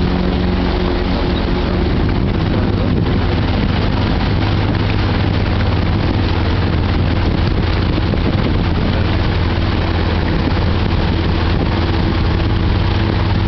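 Engine of a motorized river raft running steadily under way: a constant low drone with an even rushing hiss over it.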